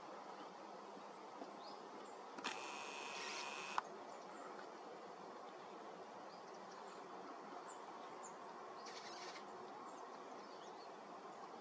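Quiet open-air background hiss with faint, scattered high bird chirps. A buzz starts about two and a half seconds in, lasts about a second and a half and ends in a sharp click; a shorter, thinner buzz comes near three-quarters of the way through.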